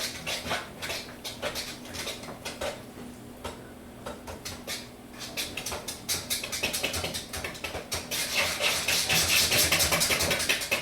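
Muffin batter being mixed by hand in a bowl, the utensil clicking and scraping against the bowl: irregular strokes at first, then fast, steady beating that gets louder over the last few seconds as the batter is worked to the right consistency.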